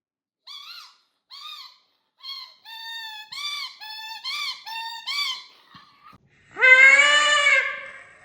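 Squeaky dog toy squeaking in short pitched squeaks that come faster and faster. Near the end comes one long, louder, bleat-like cry.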